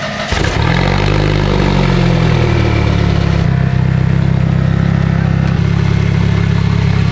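Competition 4x4 trial vehicle's engine revving up within the first second, then held steady at high revs under load.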